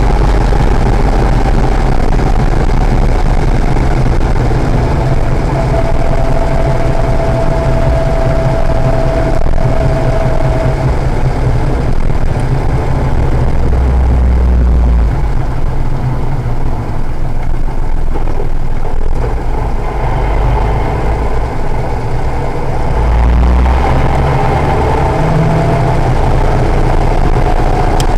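Acura NSX's V6 engine running steadily, a continuous low drone. A thin higher tone holds for several seconds about a fifth of the way in and again near the end.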